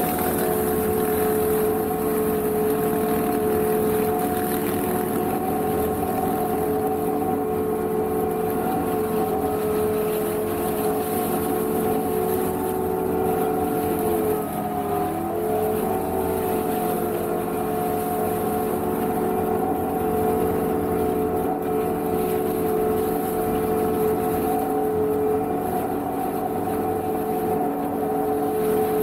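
Energreen ILF S1500 self-propelled mower running steadily under load. Its diesel engine and hydraulic drive give a steady hum with a whine as the arm-mounted flail head mulches dry reeds and brush. The pitch sags briefly about halfway through.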